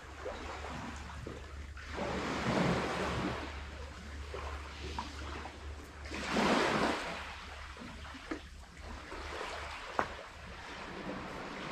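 Sea waves washing onto a shell-gravel beach, swelling and falling away, with the loudest surge about six seconds in and a few small clicks.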